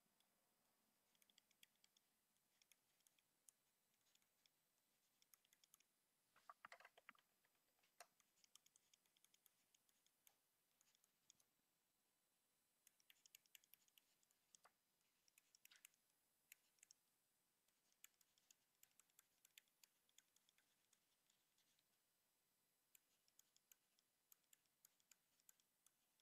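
Near silence, broken by faint, scattered clicks and taps of a stylus writing on a tablet or touchscreen, with one slightly louder brief sound about six and a half seconds in.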